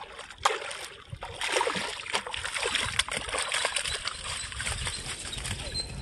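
A hooked fish thrashing and splashing at the water's surface, then water sloshing and pouring off a hand net as the fish is scooped up. Irregular splashes, the sharpest about half a second in and again around three seconds.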